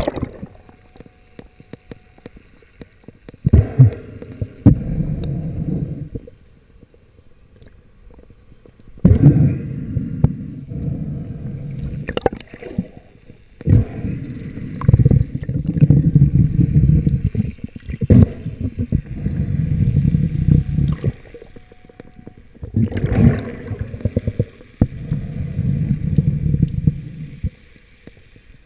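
Low, muffled underwater rumble of water rushing over the camera housing as a freediver swims down, coming in several bouts of a few seconds with quieter gaps between.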